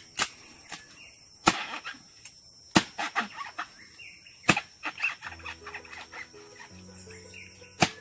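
A machete chopping at the stalks around a cluster of maram palm fruit: about five sharp strikes, a second or more apart, with crackling of leaves and stems between them.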